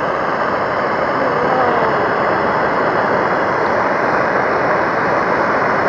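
Handheld gas blow torch burning, its flame giving a loud, steady hiss.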